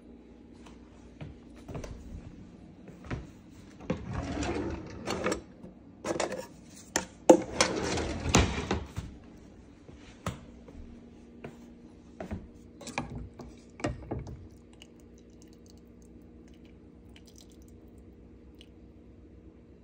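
Kitchen handling noises: scattered knocks and clatter, with two longer, noisier stretches about four and eight seconds in, then a few lighter taps of footsteps on a wooden floor, all over a steady low hum.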